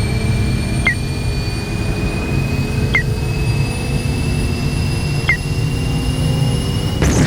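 Analog-synthesizer sci-fi warp sound effect: a steady low rumbling drone under thin high tones that slowly rise in pitch, with a short chirping ping about every two seconds. Near the end a burst of hiss comes in.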